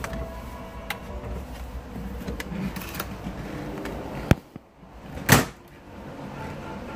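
A door being shut: a sharp click a little past four seconds in, then a heavier thud about a second later, the loudest sound here. Before the click a steady low hum runs underneath, and it drops away when the door closes.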